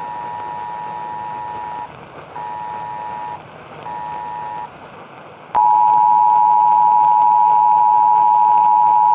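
Emergency Alert System–style two-note attention tone: three shorter beeps, then a louder long steady tone that starts about five and a half seconds in, over a background hiss.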